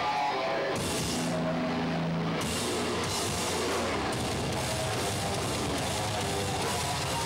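Hardcore punk band playing live with distorted guitar and drum kit. A held low note with cymbals rings for the first couple of seconds, then the full band comes in about two and a half seconds in.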